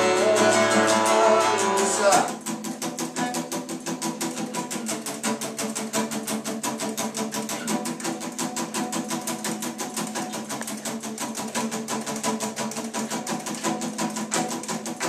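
Acoustic guitar fingerpicked in a quick, even run of plucked notes, with a man's sung note ending about two seconds in, after which the guitar plays on alone.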